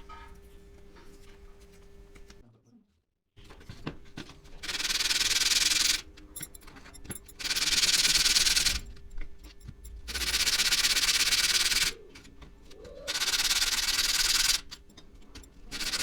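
Sanding small wooden pieces: a series of loud, even rubbing passes of one to two seconds each with short pauses between, beginning after a brief silent gap a few seconds in.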